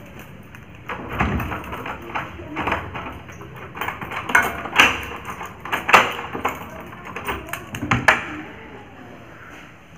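Door lock being unlocked with a key: a string of irregular metal clicks, knocks and rattles from the lock and the door's metal bar handle.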